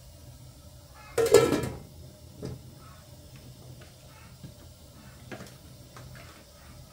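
A metal lid is set down on a stainless steel cooking pot with a loud clang that rings briefly, about a second in, followed by a few light clicks of utensils. A gas burner hums steadily under the pot.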